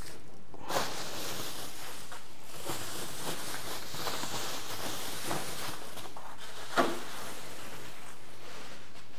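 Rustling and handling of TV packaging as it is pulled off, with a few light knocks, the loudest about seven seconds in.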